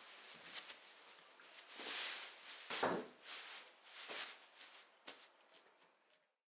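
Rustling and handling noises with several sharp clicks, cutting off abruptly near the end.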